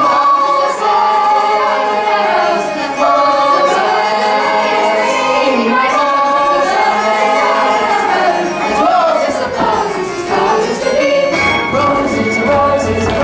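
Chorus of young voices singing together from a stage musical, long held notes that slide up and down. A low accompaniment fills in under the voices near the end.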